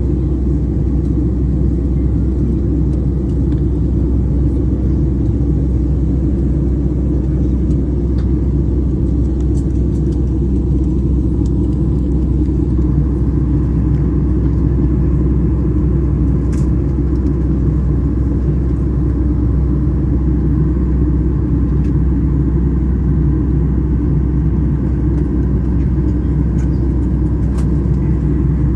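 Airplane cabin noise in flight: the engines' steady, loud drone with a deep rumble underneath.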